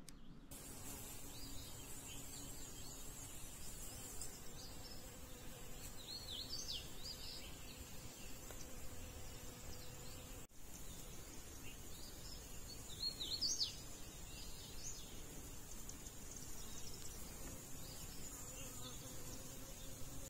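Woodland ambience: a steady high-pitched insect drone, with two brief bursts of bird chirps, about a third of the way in and again past halfway.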